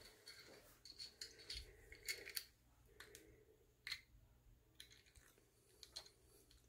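Near silence broken by faint, scattered light clicks and taps, about a dozen, irregularly spaced.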